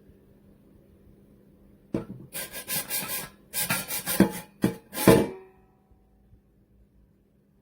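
Metal parts of a stainless steel French press scraping and rubbing as it is handled, in a string of short rough strokes over about three seconds, the last one leaving a brief metallic ring.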